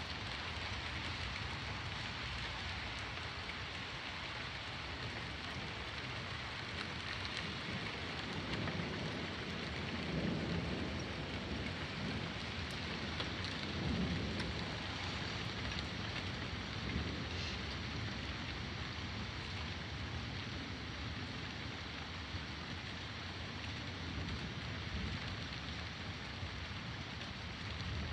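Steady rain falling. Thunder rumbles low twice in the middle, the first about a third of the way in and the second soon after.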